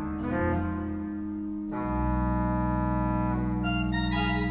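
Pipe organ playing sustained chords over a held low pedal note. A softer passage with moving upper notes gives way, just under two seconds in, to a fuller, louder chord, and near the end higher notes shift above it.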